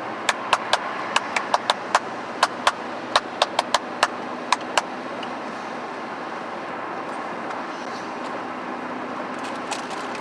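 Steady car-interior road noise, with a quick irregular run of sharp clicks or taps through the first five seconds and a few fainter ones near the end.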